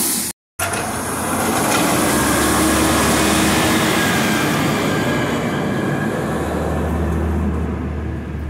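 McNeilus Meridian front-loader garbage truck on a Peterbilt 320 chassis running loud and steady, with a deep diesel rumble that builds near the end as it pulls away.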